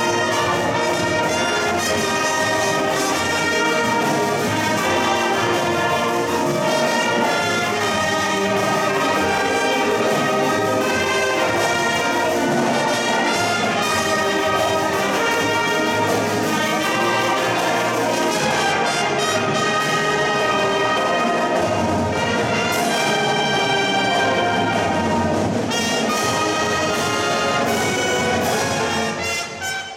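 High school marching band playing its field show with the brass section to the fore, trumpets and trombones carrying the music. The band plays continuously and briefly drops away near the end.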